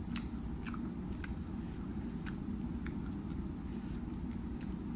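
Close-miked eating of a baked chicken wing: the wing torn apart by hand and chewed, heard as scattered small wet clicks and crackles over a steady low hum.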